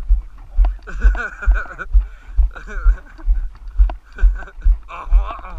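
Footsteps of a person walking on a dirt road, picked up through a camera carried by the walker: a low thud with each stride, about two a second.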